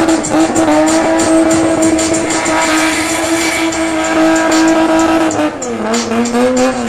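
A spinning car's engine held at high, steady revs, with its tyres screeching as it spins. About five and a half seconds in the revs drop and waver, then climb again near the end.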